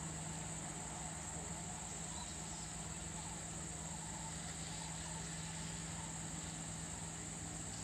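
A steady, high-pitched insect chorus over a low, steady hum, with no sudden sounds.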